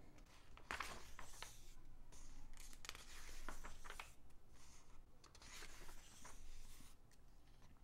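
Glossy magazine pages being turned and smoothed flat by hand: several soft paper rustles and slides.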